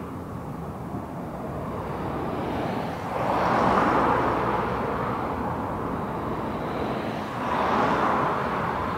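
Cars passing one at a time on the road alongside. Each makes a swell of tyre and engine noise that rises and fades, the loudest about three to four seconds in and another near the end, over a steady low rumble.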